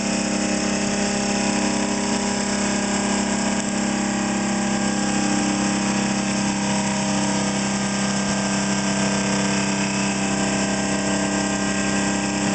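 Experimental ReGenX regenerative-acceleration generator, with one of its coils run as a motor through a commutator, spinning at a constant speed. It gives a steady mechanical hum with a strong low note and a higher whir, unchanging throughout.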